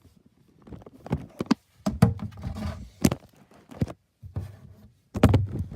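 Handling noise: scattered knocks, taps and rubbing as things are moved about and set down, with a louder cluster of thumps about five seconds in.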